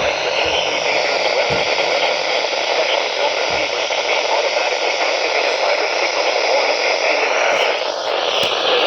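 Loud, steady hiss of radio static from a weather radio receiver.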